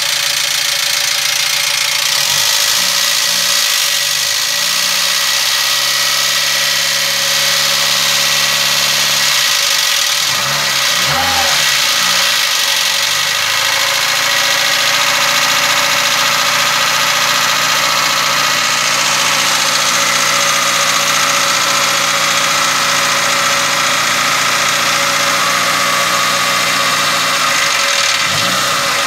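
Rebuilt 1.4-litre petrol engine of a 2004 Dacia Solenza running steadily, its speed shifting a couple of times as it is revved lightly. It is being run for a ticking that the owner says comes at cold start and goes away once the engine is warmed and revved.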